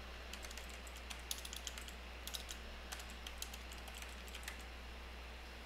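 Faint typing on a computer keyboard: an uneven run of key clicks that stops near the end, over a low steady hum.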